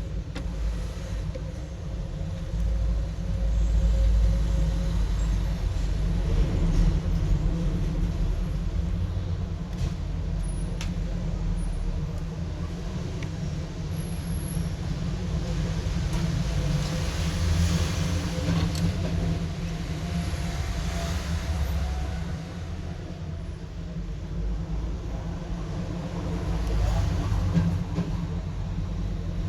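Steady low rumble that swells louder with a hiss for a few seconds past the middle, with a few faint clicks.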